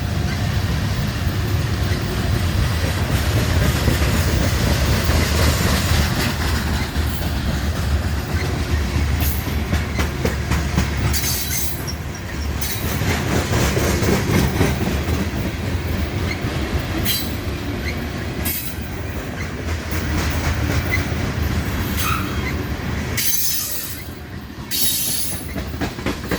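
Slow freight train's cars rolling past at close range: a steady low rumble with wheels clicking over the rail joints. Short high wheel squeals break in several times.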